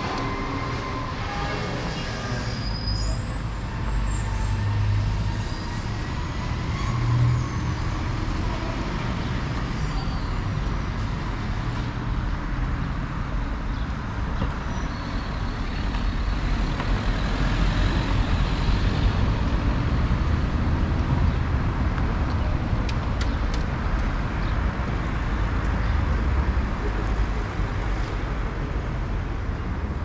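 Town street ambience dominated by passing road traffic: a steady low rumble of vehicles and tyres that swells a little about halfway through.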